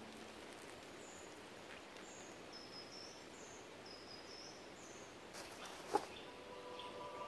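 Quiet woodland ambience with a small bird singing a string of short, high notes for a few seconds. A single sharp click comes about six seconds in.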